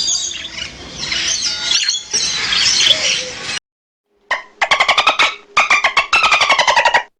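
A dense chorus of high chirps and squeals, then after a short pause two rapid, quavering animal calls, the second longer, each falling slightly in pitch.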